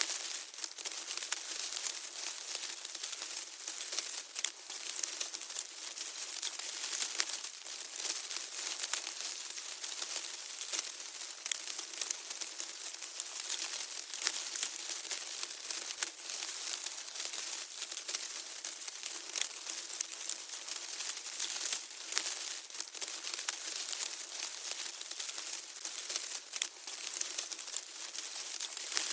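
Ant colony sound effect: a dense, steady crackling and rustling of countless tiny clicks, thin and high with nothing deep in it.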